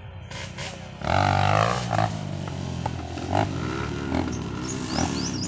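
A person's long, drawn-out shout, loud and wavering, starting about a second in, with softer wavering vocal sounds after it. Sharp clicks recur throughout, and high bird chirps begin near the end.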